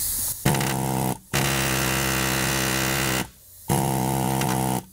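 Pneumatic air hammer firing in three buzzing bursts, the middle one longest, as it works at a stuck seat-mounting bolt in the car floor.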